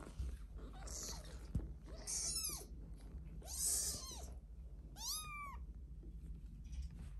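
Tiny black British Longhair kittens mewing: three thin, high-pitched mews about a second and a half apart, each rising then falling, after a fainter one about a second in.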